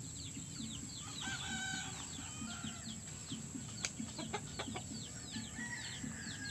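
Backyard chickens: chicks peeping over and over in short falling chirps, with low clucking from a hen. A longer held call comes about a second in, and a single sharp click near four seconds.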